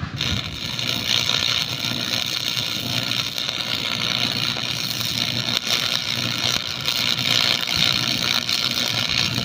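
Stick welding arc crackling steadily and without a break.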